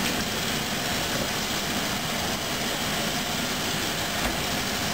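Kitchen faucet running, a steady stream of water splashing into a stainless steel sink.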